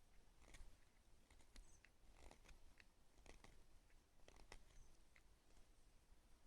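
Faint, irregular small clicks and crackles, a few each second, over quiet background.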